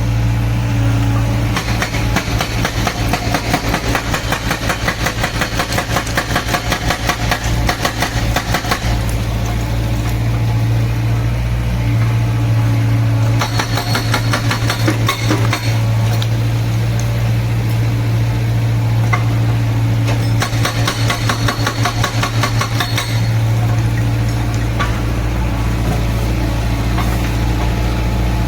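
Excavator-mounted hydraulic breaker hammering in three bouts of rapid, evenly spaced blows, with the excavator's engine running steadily underneath.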